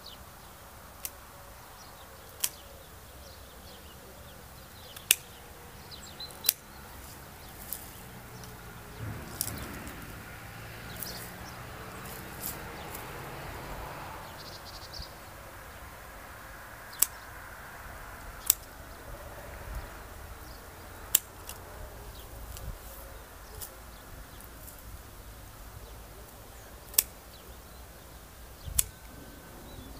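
Hand pruning shears snipping grapevine canes: about fifteen sharp, single clicks at irregular intervals, a second or a few seconds apart.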